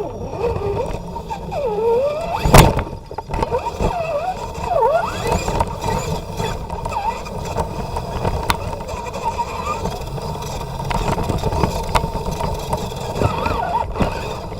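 Electric motor and drivetrain of a 1/10-scale 4x4 RC truck, heard from onboard, whining up and down in pitch as the throttle changes, over a rumble from the chassis and tyres on the terrain. One sharp knock about two and a half seconds in, with a few lighter clicks later.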